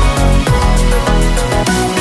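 Background electronic music with a heavy pulsing bass, held synth notes and a steady beat.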